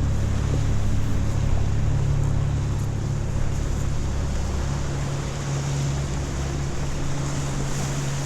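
Steady low drone of a sailboat's engine under way, with water rushing past the hull and wind noise over it.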